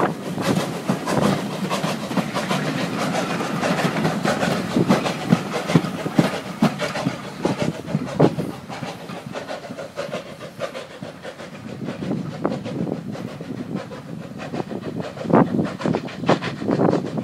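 Vintage carriages of a steam-hauled train rolling past close by, wheels clattering in quick repeated clicks over the rail joints. About ten seconds in the clatter thins and fades as the train draws away.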